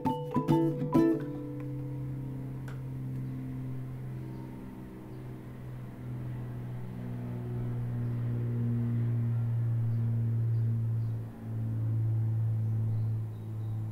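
Background music: a few quick plucked-string strums in the first second, then held low notes with slowly changing chords above them, briefly dipping about 11 seconds in.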